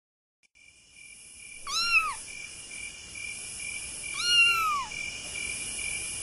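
A cat meows twice, each call rising and then falling in pitch, over a steady chirring of crickets at night that fades in at the start.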